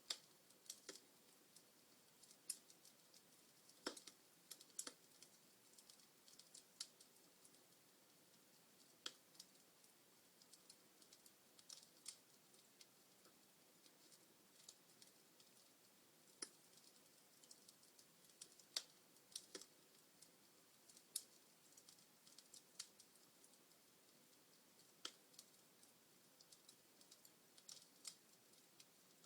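Log fire crackling in a fireplace: scattered sharp snaps and pops at irregular intervals, every second or so, over a faint hiss.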